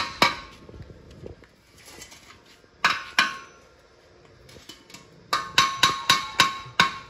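A metal tool striking a sheet-steel exhaust muffler, each blow a sharp ringing clank. There is one blow just after the start, two about three seconds in, then a quick run of about seven, roughly three a second, near the end.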